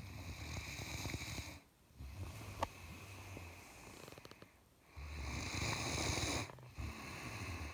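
A Great Dane snoring in deep sleep: four rattling snores, each a second or two long, with short pauses between them.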